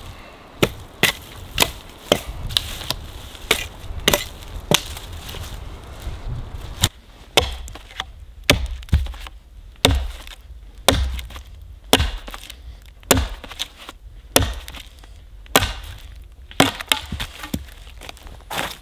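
Hatchet chopping into a small tree trunk: a long series of sharp wooden strikes, about one to two a second.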